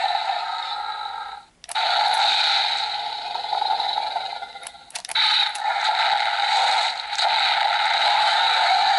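Mattel Jurassic World Roarivores Baryonyx toy playing its recorded dinosaur roars through its small built-in speaker, one after another. There are three or four long roars of a few seconds each, thin with no bass, separated by a brief gap and a few clicks.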